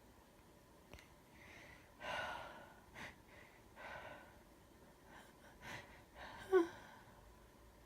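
A woman with a bad cold taking a series of short, gasping breaths, with one brief, loud voiced catch of breath, falling in pitch, near the end: the sharp intakes that build up to a sneeze.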